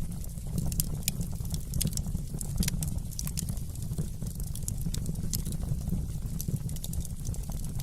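Wood fire in a fireplace crackling: irregular sharp snaps and pops, several a second, over a steady low rumble of the burning.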